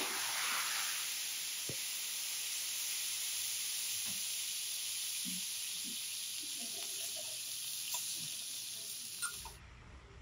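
Food sizzling on a teppanyaki griddle: a steady hiss that swells briefly in the first second as liquor is flambéed and flares. A few light clicks come through, and the sizzle cuts off suddenly near the end.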